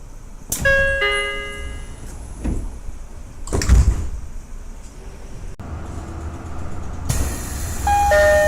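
Commuter train door chimes: a single bell-like chime a little under a second in, then the sliding doors closing with a thud around four seconds in. Near the end, a two-tone high-low door chime starts repeating.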